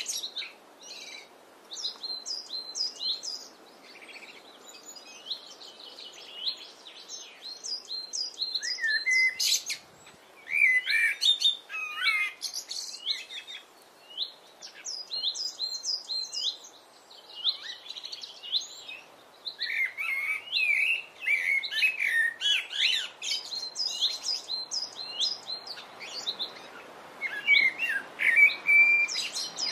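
Common blackbird singing: repeated phrases of lower warbled notes breaking into high, quick twittering, with short pauses between phrases, over a faint steady background hum.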